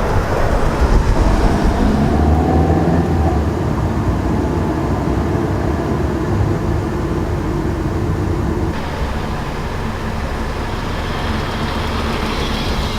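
Van engine running with a heavy low rumble as the vehicle pulls over. The sound thins out and eases about nine seconds in.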